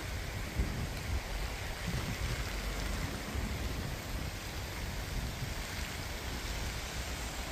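Swollen river in flood, its fast brown water rushing steadily just below bank level.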